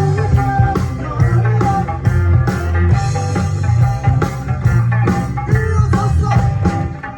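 Live band playing an upbeat song with guitar and a steady drum beat.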